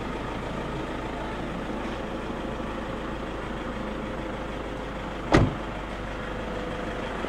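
Steady rumble of a car driving, heard from inside. A single sharp thump comes about five seconds in.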